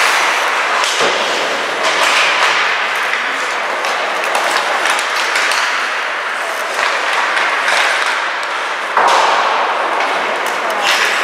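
Ice hockey play on the rink: skates scraping the ice over a steady din, with scattered clacks of sticks and puck and thuds against the boards. It gets louder about nine seconds in.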